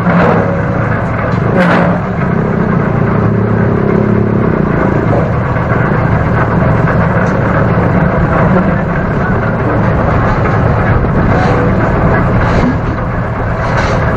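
Motorcycle engine running steadily while riding through city traffic, under a constant rush of road and wind noise on a helmet-mounted microphone, with a few brief knocks near the end.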